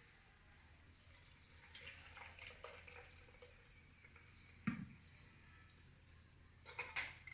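Faint kitchen sounds while a boiled herbal decoction is strained: light drips and small taps, with one sharp knock of a vessel about halfway through and a couple more clinks near the end.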